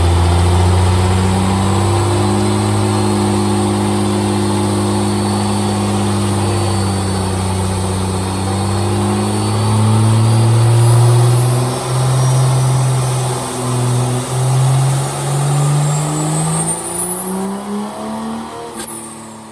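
Built 6.7 Cummins inline-six diesel making a full-throttle dyno pull. The engine note holds steady, then climbs in pitch over the second half while a high turbo whistle rises above it, and it cuts off suddenly near the end.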